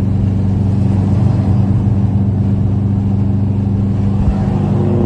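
Car engine and exhaust droning steadily at highway cruise, heard from inside the car. A second tone joins about four and a half seconds in, as a blue Subaru WRX pulls up alongside.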